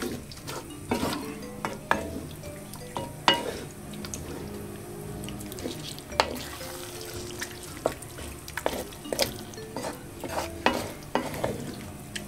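Wooden spoon stirring a thick stew in a large aluminium pot, with irregular knocks and scrapes of the spoon against the pot's sides.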